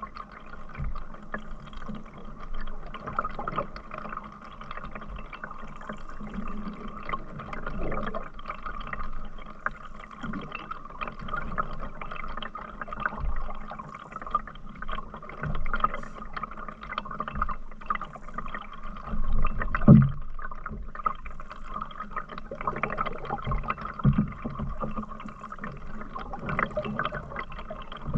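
Water gurgling and splashing around a canoe on the move, with a low thump about twenty seconds in.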